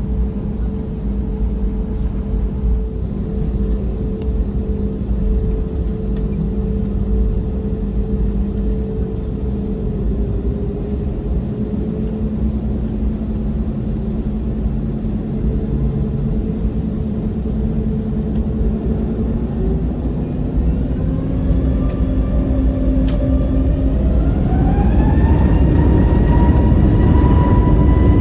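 Airbus A321neo's CFM LEAP-1A turbofan engines heard from inside the cabin: a steady hum with two held tones, then about twenty seconds in the engine tones climb and the sound grows louder as the engines spool up for takeoff.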